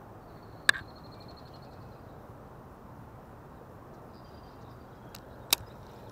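Two sharp clicks from a baitcasting reel being worked while pitching a lure, one about a second in and one near the end, with a faint high whir around each.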